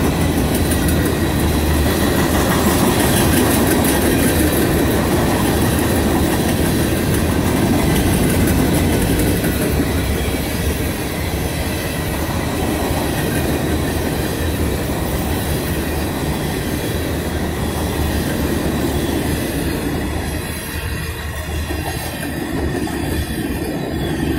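Steel gondola cars of a freight train rolling past close by: a loud, steady rumble of steel wheels on the rails, with a faint high-pitched wheel squeal. The rumble eases slightly near the end.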